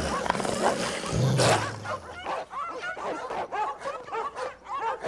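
A pack of caged dogs barking and snarling in quick, overlapping calls, with one louder, deeper burst about a second in.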